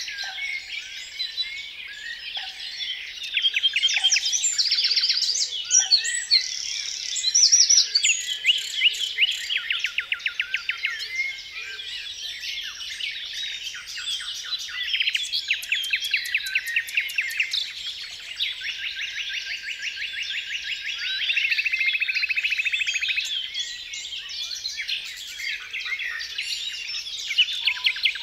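Many birds singing at once in a dense chorus of overlapping chirps and rapid, evenly pulsed trills, with some louder phrases standing out now and then.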